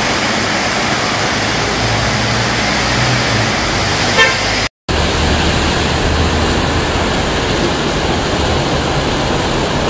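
Heavy rain falling steadily, with a short car horn toot about four seconds in. Right after it the sound drops out completely for a split second, then the rain resumes.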